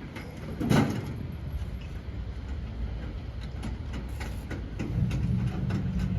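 Scattered metal clanks and knocks of hand work on a Ford Model T being assembled, with one louder knock under a second in. A low steady rumble comes in about five seconds in.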